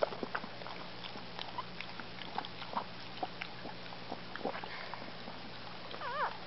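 Scottish Terrier mother licking her newborn puppy: scattered short wet smacks and licks. About six seconds in, a newborn puppy gives a brief wavering squeal.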